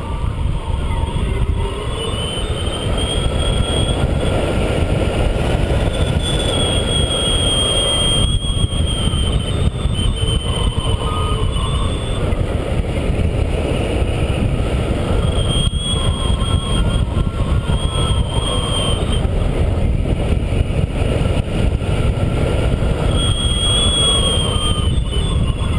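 Steady rush of wind over the microphone of a hang glider in flight, with a thin, slightly wavering high tone that fades in and out several times.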